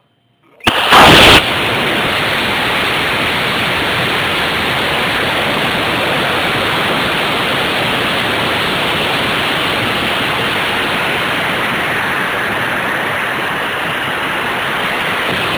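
Cesaroni I255 Red Lightning rocket motor igniting at liftoff, heard from a camera riding on the rocket: a sudden, very loud blast lasting under a second. Then a steady rushing noise of air streaming past the onboard camera as the rocket flies.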